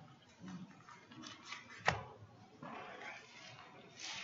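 Faint rustling of Bible pages being turned, with one sharp click about two seconds in.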